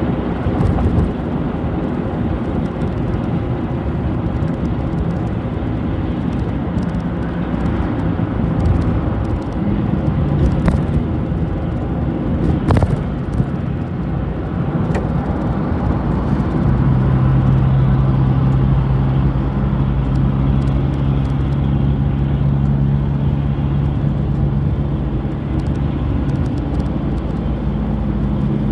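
City bus on the move, heard from inside the cabin: engine drone and road rumble, with a steady low engine hum setting in about halfway through. A single sharp click a little before the hum begins.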